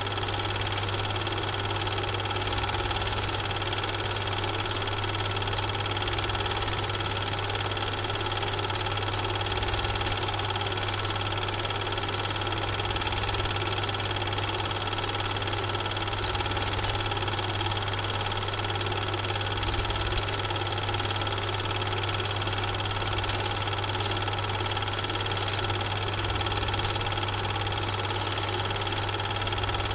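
Steady running noise of a Super 8 film projector: a constant motor hum with a fine mechanical rattle that does not change from start to end. It is not the train, because the film itself is silent.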